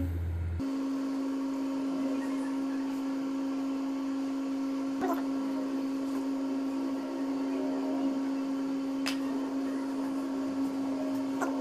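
A steady electrical hum, like a small motor or appliance running, starting and stopping abruptly, with two or three faint clicks.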